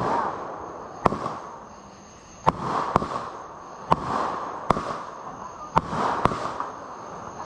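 Consumer fireworks going off in quick succession: about eight sharp bangs, roughly one a second, each followed by a brief fizzing trail.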